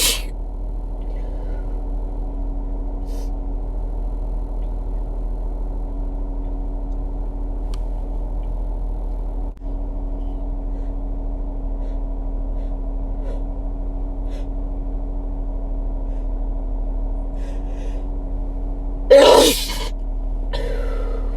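A single loud human sneeze about nineteen seconds in, followed a second later by a shorter, quieter breathy sound. A steady low hum runs underneath throughout.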